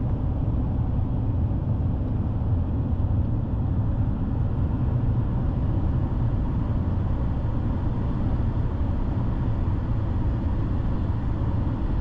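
A truck driving on the road: steady, unchanging low rumble of road and engine noise.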